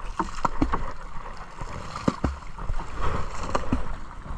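Sea water splashing and lapping around a camera held at the water's surface: a quick run of small splashes and plops over a low rumble.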